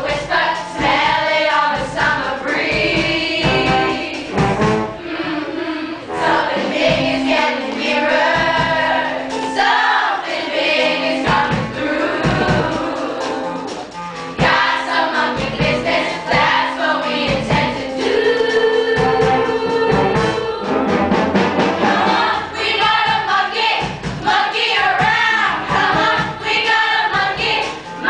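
Young cast singing together in chorus over a musical accompaniment with a steady beat.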